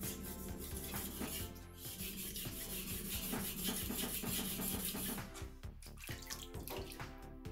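Background music throughout, over the hiss of a Shun damascus nakiri blade being stroked on a wet whetstone for about the first five seconds. Near the end, water splashes as the blade is rinsed in a tub.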